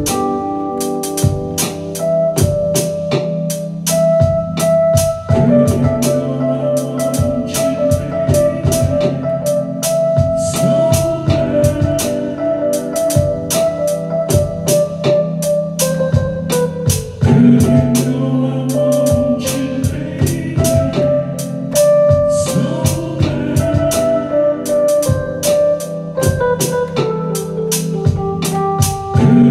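Electronic keyboard played live: long held chords with a melody line on top, over a steady drum beat.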